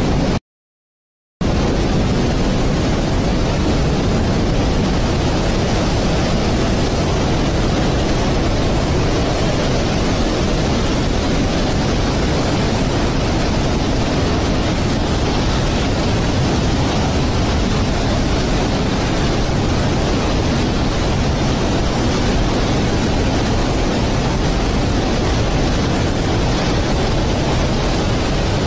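Muddy floodwater and debris flow rushing past in a steady, loud, rumbling noise that is heaviest in the low end. The sound drops out for about a second near the start.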